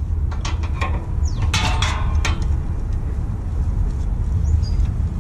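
Several sharp metal clinks and knocks from a clamp and bracket being handled against a truck's vertical exhaust muffler, most of them in the first two seconds and one more near the end, over a steady low rumble.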